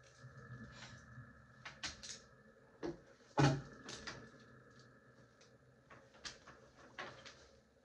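Power strip cord being untangled by hand: scattered light clicks and knocks of plastic and cord, with one louder thump about three and a half seconds in.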